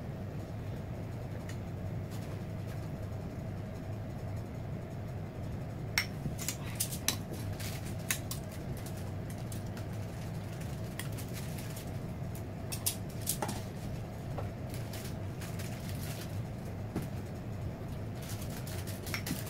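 Scattered light clicks and taps of metal kitchen tongs and a basting brush against a plate and a small bowl, starting about six seconds in, over a steady low hum.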